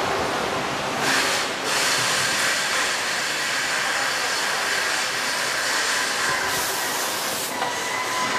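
Steady hiss of factory-floor machinery along a running packaging-line conveyor belt, with a faint high steady whine over it.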